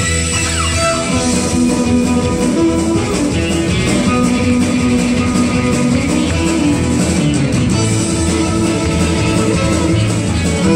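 A live band playing: a bowed violin carries the melody over guitar and a steady drum beat.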